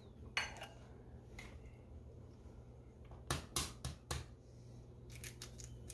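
An egg tapped sharply against a granite countertop about three times to crack the shell, a little past three seconds in, with fainter clicks of eggshell handled over the glass bowl before and after. A low steady hum runs underneath.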